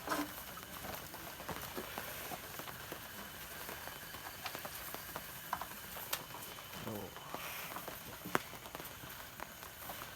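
Steady rain pattering, with scattered sharp taps and knocks through it.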